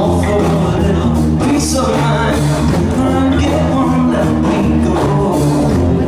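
Loud song with singing.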